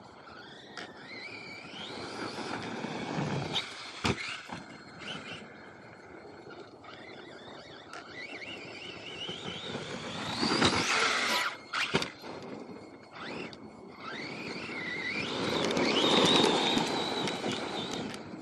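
Electric RC monster truck's motor whining up in pitch as it accelerates, three times, with the tyres scrabbling on loose dirt. Sharp knocks about four and twelve seconds in.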